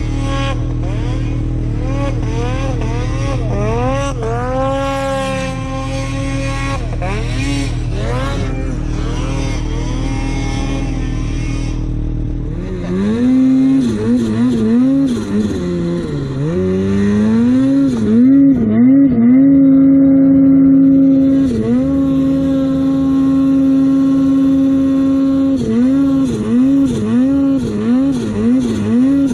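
Snowmobile engine idling with a low rumble while revs rise and fall, then, about halfway through, getting louder as the sled is ridden through deep powder, the throttle opened and eased over and over, held steady at times, with quick repeated blips near the end.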